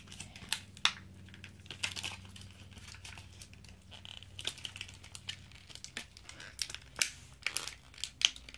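Plastic blister packaging on a toy card crinkling and crackling as it is pried and peeled open by hand, in irregular sharp clicks.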